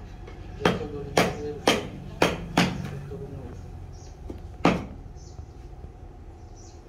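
Hammer blows on a steel chisel cutting into a wooden block: five sharp strikes about half a second apart, then one more after a pause of about two seconds.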